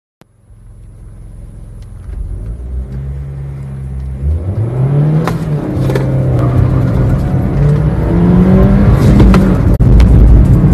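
2015 Maruti Suzuki Swift Dzire's engine heard from inside the cabin, accelerating hard: faint at first, then growing louder as the revs climb, with the pitch falling back and climbing again at the gear changes.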